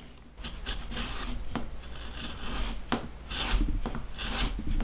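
Mini hand plane shaving the edge of a glued leather wallet piece in repeated short scraping strokes, with a few sharp clicks, trimming the layers flush and rounding over the edge.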